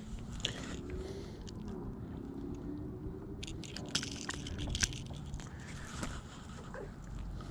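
Scattered light clicks, scrapes and crackles of fishing gear being handled in a kayak, over a faint low hum; the clicks come thickest a little past the middle.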